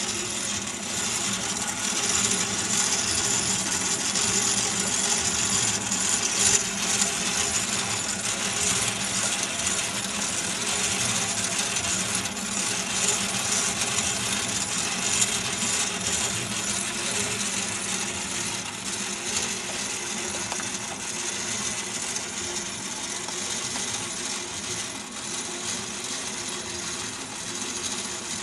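Merkur construction-set model of one engine cylinder running, with crankshaft, camshaft, push rods and rocker arms all turning. Its loose steel strips, nuts and linkages rattle and clink as a steady, dense metallic clatter.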